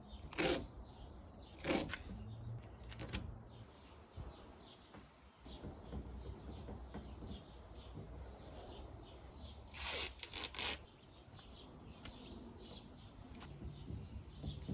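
Masking tape ripped off the roll in short tearing bursts: three about a second apart near the start, then a quick run of rips about ten seconds in.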